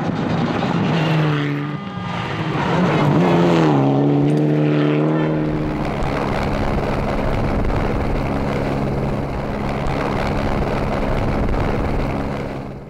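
Rally car engine at full effort, its pitch swooping up and down with throttle and gear changes for the first few seconds, then holding steady under loud tyre and road noise before dropping away near the end.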